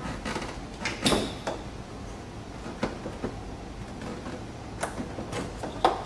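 Scattered sharp plastic clicks and rattles of electrical connectors being unclipped by hand from the front bumper's light wiring, the sharpest click near the end.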